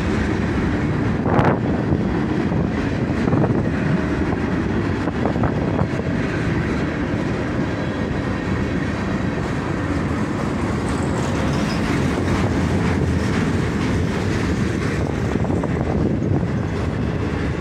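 CSX freight train's tank cars and boxcars rolling past: steel wheels on the rails make a steady rumble, with clicks and clanks as they cross rail joints, the sharpest about a second and a half in.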